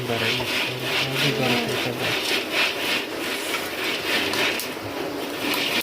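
Rhythmic scraping in a pan, about two strokes a second, as maize kernels are stirred while they roast and pop into lai. A low voice hums or murmurs during the first two seconds.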